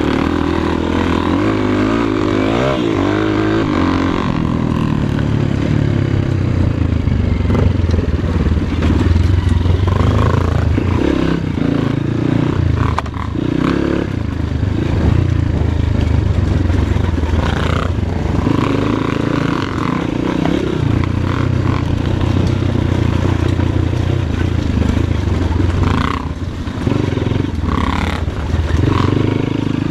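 Off-road dirt bike engine revving up and down repeatedly as it claws over loose rocks, with a few sharp knocks and scrapes.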